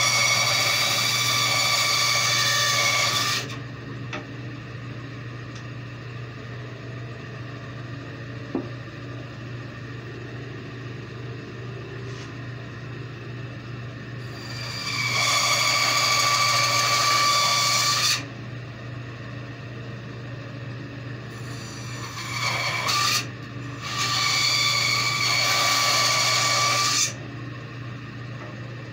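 Bandsaw blade cutting through wooden carving blanks in three passes of a few seconds each, the last broken by a brief pause, over a steady low hum between cuts.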